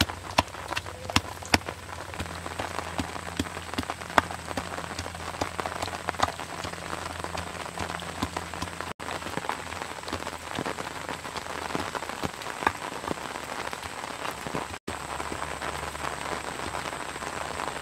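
Wooden pestle pounding salad ingredients in a clay mortar: sharp knocks, several a second for the first couple of seconds, then more scattered, over a steady patter and hiss.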